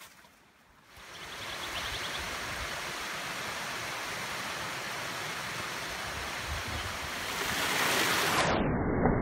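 Creek water running over granite rocks and splashing down a small cascade: a steady rush that starts about a second in and grows louder near the end.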